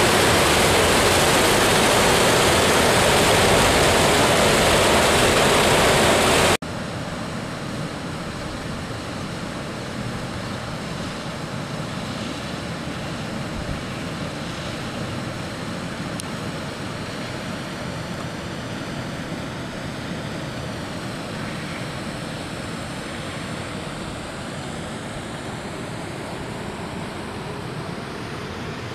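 Rainwater rushing into a domed berkeh water reservoir, a loud, steady echoing rush. About six seconds in it cuts off sharply to a quieter steady hiss.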